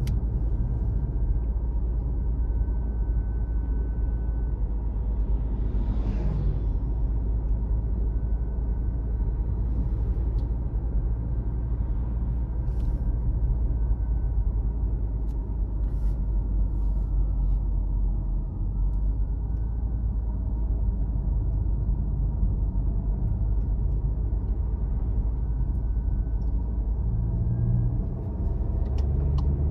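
Steady low rumble of a car driving along a road, engine and tyre noise together, with a brief rushing swell about six seconds in.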